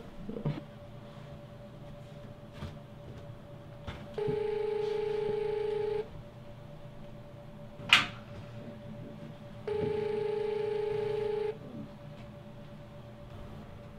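Telephone ringback tone, the steady ring a caller hears while waiting for an answer, sounding twice for about two seconds each time. A single sharp knock falls between the two rings.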